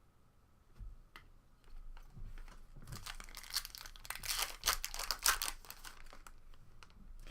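A foil trading-card pack wrapper being torn open and crinkled. A few light clicks come about a second in, followed by about three and a half seconds of dense crinkling.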